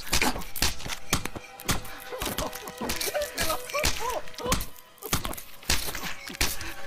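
A glass bottle is struck again and again against a man's face, dull heavy thuds about two a second. Strained, wavering cries come between the blows in the middle of the stretch.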